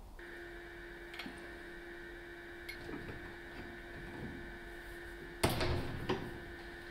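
Two hammer blows on a steel rod clamped in a bench vise, the first sharp and loud with a brief ring, the second lighter about half a second later, near the end. Before them come a few light metal clicks, all over a steady hum.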